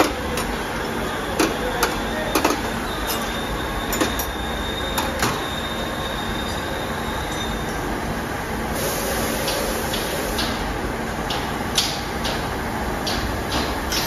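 Steady mechanical din of an old CNC milling machine running in a machine shop, with sharp clinks of metal hand tools handled on the steel bench in the first few seconds. About nine seconds in, a hiss joins, with a run of sharp clicks.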